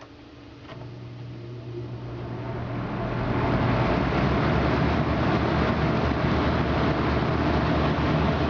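1983 Lakewood C-122-X box fan switched on to high speed: a click, then the motor's hum and the rush of air build over about three seconds as the blades spin up, settling into a steady whoosh.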